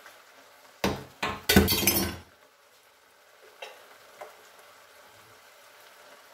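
Kitchenware being handled: two sharp knocks about a second in, then a brief ringing clatter of pots and utensils, after which only a couple of faint clicks are heard.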